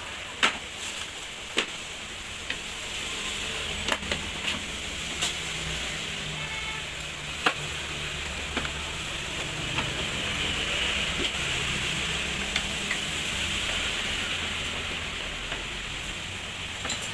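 A steady hiss with a low background rumble, broken by scattered sharp clicks and knocks about every second or two.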